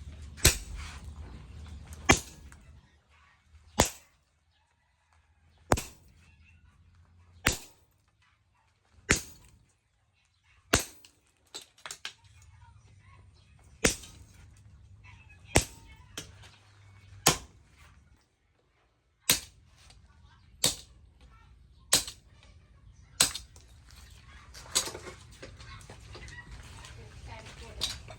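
Hand hammer striking hot leaf-spring steel on an anvil: single sharp blows about every one and a half to two seconds, each with a short ring, over a low hum.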